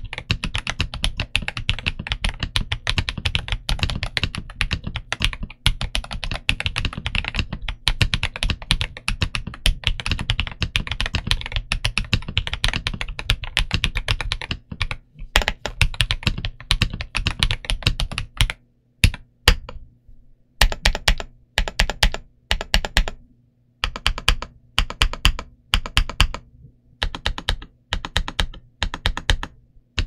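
Typing on a Xinmeng M87Pro mechanical keyboard with Gateron EF Grayish linear switches and DSA-profile PBT keycaps. The keys clatter rapidly and continuously for about the first half, then come as slower, separate keystrokes with short pauses between them.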